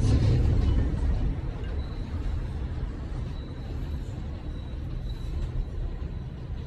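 Elevated rapid-transit train rumbling as it pulls away down the track, the low rumble slowly fading.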